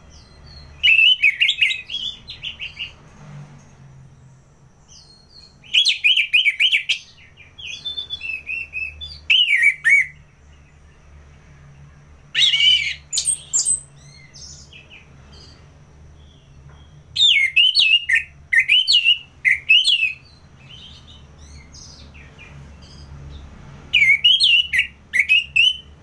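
Orange-headed thrush singing in full song: loud phrases of rapid, warbled high notes, each a second or two long, repeated every few seconds with short pauses between, over a faint steady low hum.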